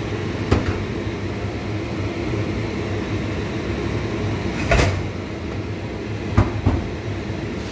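Steady low mechanical hum, with a few short knocks, the loudest a little under five seconds in.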